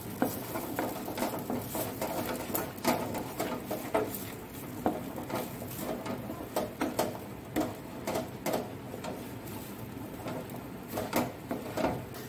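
Spatula scraping and slapping thick mashed spiny-gourd paste around a non-stick kadai in repeated, uneven strokes, about one or two a second, as the bharta is stirred continuously over low heat.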